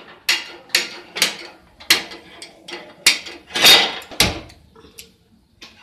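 A gas stove burner being lit with a handheld spark lighter: a run of sharp clicks roughly half a second apart, with one longer scrape about two-thirds of the way through that is the loudest sound.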